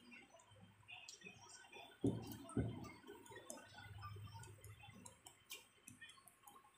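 Handling noise from a taken-apart LED TV panel: scattered light clicks and ticks of plastic sheets and the metal frame being moved, with two knocks about two seconds in.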